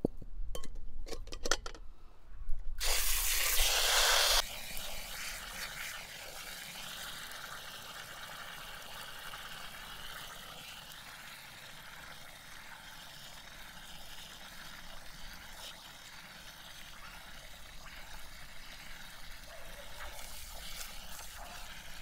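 Water: a few sharp clinks and knocks, then a loud rush of pouring water for about two seconds, then a steady, softer running-water hiss.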